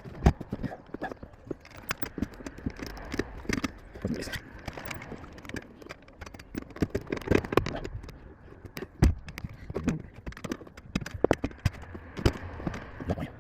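Irregular knocks, taps and clicks of a sliding cupboard door and its aluminium slider track being worked into place on 80/20 extrusion by hand.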